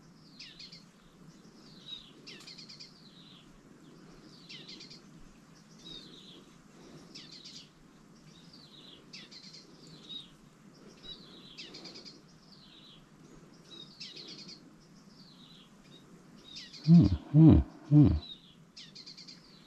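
A bird singing, repeating a short chirping phrase about once a second. Near the end, three loud, short, low sounds follow in quick succession.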